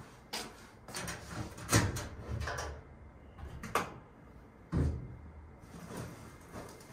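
About six separate knocks and clunks spread over several seconds, the loudest about two seconds in.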